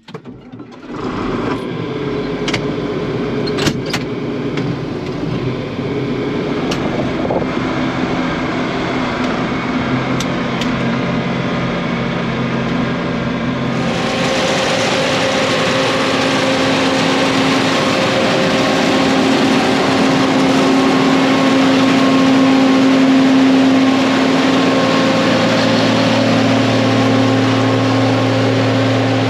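John Deere tractor engine running steadily under way, heard from inside the cab, with a couple of sharp clicks a few seconds in. About halfway through it changes abruptly to a louder, fuller engine sound.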